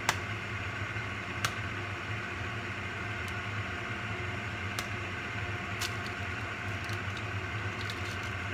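A fan running steadily with a low hum, and a few sharp light clicks as an egg is cracked over the pan.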